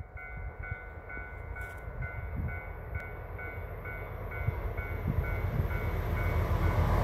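Railway warning bell ringing in a steady two-tone pattern, about two strikes a second, while an approaching freight train's low rumble grows steadily louder.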